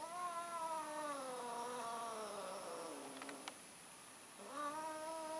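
Cat yowling during mating: one long drawn-out call that rises at first and then slowly sinks in pitch over about three seconds, and a second call starting about a second after it. A short click falls between the two calls.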